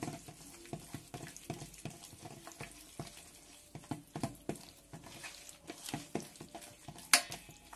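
A hand squishing and mixing thick, wet spice-and-yogurt masala paste in a stainless steel bowl: irregular soft wet smacks and ticks. One sharp click about seven seconds in.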